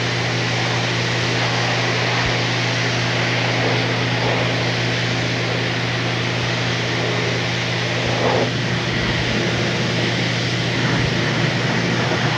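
Pressure washer running: a steady motor hum under the hiss of a water spray hitting the underside of a car's hood and engine bay.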